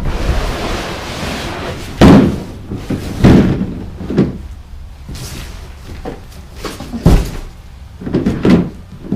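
A large hollow plastic sandbox being unpacked from its cardboard box: a scraping rustle, then a handful of loud, irregular knocks and thumps as the plastic shell is handled and set down.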